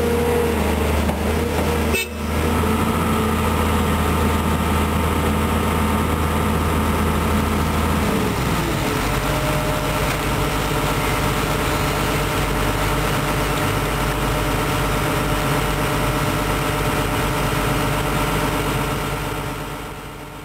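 Volvo EC210B excavator's six-cylinder diesel engine running steadily under load. About eight seconds in, the engine note drops to a lower, idling pitch. The sound fades out near the end.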